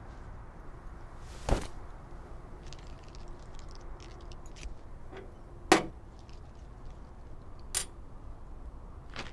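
Knuckles being cracked: three sharp loud cracks, about a second and a half in, just before the middle and again later, with fainter clicks between, over a low steady hiss.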